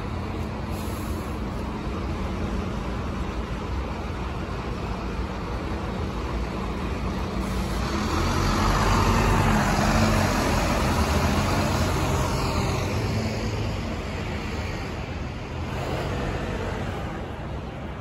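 City street traffic noise, with a double-decker bus passing close: its engine and tyres swell louder around the middle, then fade.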